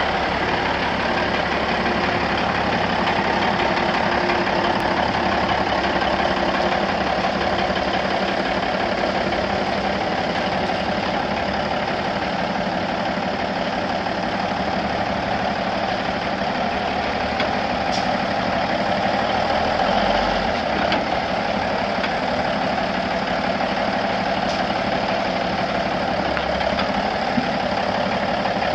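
A 1982 Peterbilt 362 semi truck's six-cylinder diesel engine idling steadily.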